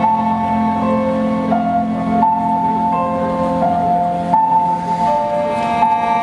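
Slow instrumental music for a contemporary dance: a melody of held notes, changing about every second, over low sustained notes.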